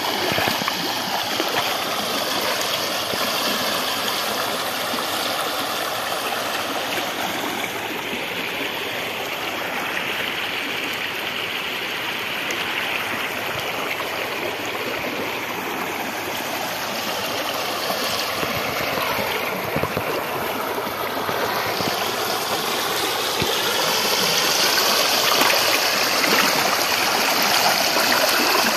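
Fast floodwater rushing over a submerged embankment road into flooded paddy fields: a steady whooshing of the current, louder in the last few seconds.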